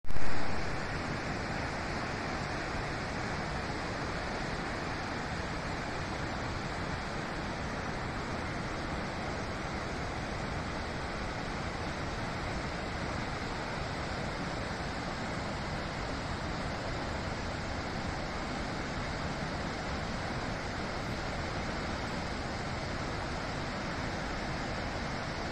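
Steady, even rushing of Magod Falls on the Bedthi River, water plunging over the rock drops. A brief loud burst comes at the very start.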